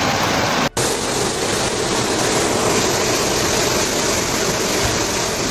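Steady rushing noise of floodwater, cutting out for an instant under a second in.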